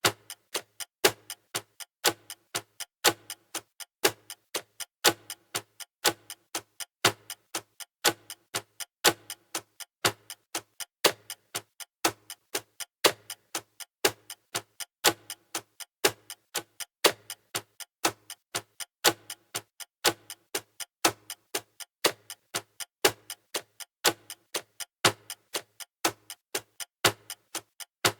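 Clock ticking steadily: a louder tick about once a second with fainter ticks between.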